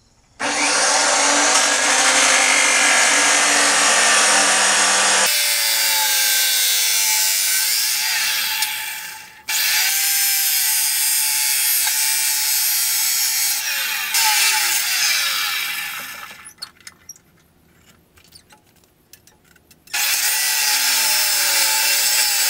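Abrasive chop saw cutting steel angle brackets, throwing sparks. It runs in two long stretches with a brief break about nine and a half seconds in, dies away around sixteen seconds, leaving a few seconds of faint clinks, then starts cutting again near the end.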